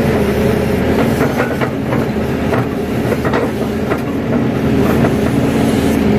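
Crawler excavator's diesel engine running steadily under working load as the bucket digs into and lifts wet soil, with a run of short clanks and knocks from the bucket and linkage through the first few seconds.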